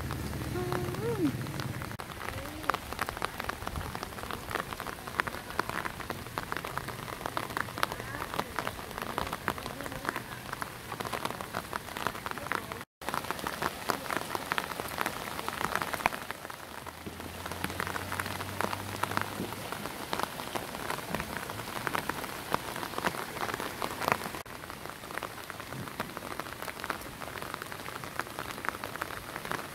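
Light rain falling onto open water, a dense, even crackle of many small drops, broken by a brief gap about thirteen seconds in.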